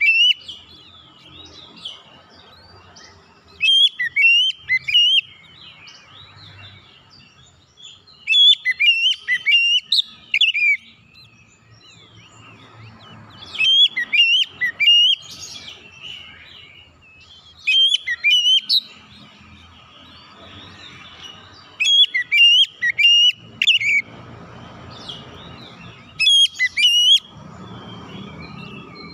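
Oriental magpie-robin (kacer) calling in loud, shrill whistled phrases. Each burst lasts a second or so and mixes rapid rising and falling notes, and the bursts repeat about every four seconds with short pauses between them.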